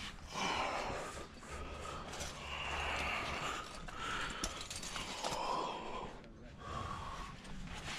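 A climber breathing hard with exertion in a chimney: a string of long, noisy breaths and gasping exhales, about a second each.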